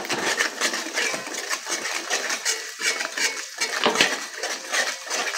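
Metal spatula scraping and clinking against the inside of a metal kadai in quick repeated strokes, stirring a thick spiced yogurt paste into fried onions.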